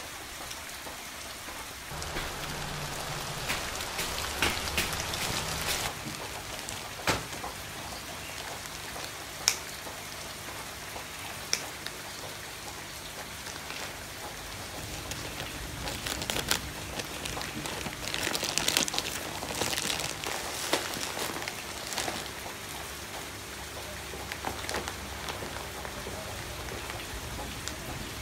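Steady patter of rain, with a few sharp clicks scattered through it.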